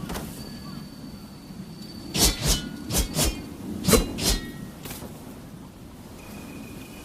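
Oxtail dao (Chinese broadsword) blades striking, metal on metal: about six sharp clanks in quick pairs, starting about two seconds in. Each clank leaves a high ringing tone that lingers, and one ring is also heard near the start and another near the end.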